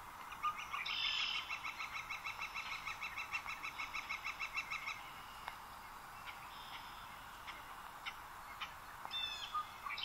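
Marsh birdsong: a yellow-shafted northern flicker's long call, a fast, even run of about six notes a second lasting some four seconds, followed near the end by scattered short chirps from other birds, over a faint steady background.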